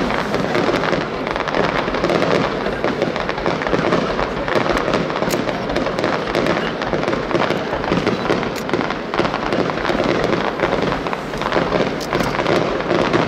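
Aerial fireworks display: a continuous, dense barrage of shell bursts and crackling with no break.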